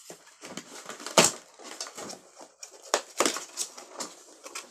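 A cardboard box being pulled and pried open by hand: irregular crackling, scraping and tearing of cardboard, loudest about a second in and again near three seconds.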